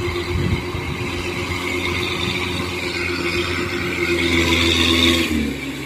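Engine of a tracked rice-hauling carrier loaded with rice sacks, running steadily as it drives across the paddy and getting louder; near the end its pitch drops briefly.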